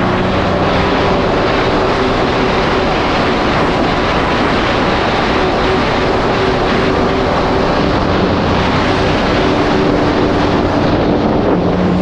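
Yamaha GP1800R SVHO jet ski's supercharged engine running steadily at speed, a constant drone under heavy rushing wind and water noise on the camera's microphone.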